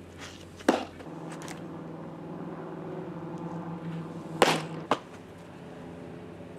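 Two pitched baseballs smacking into a catcher's leather mitt, sharp pops about four seconds apart. A short, sharp click follows the second about half a second later. A faint steady hum runs underneath.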